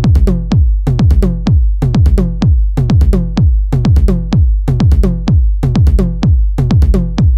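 House music: a dense drum-machine beat of drum hits that drop in pitch, several a second, over a continuous deep bass.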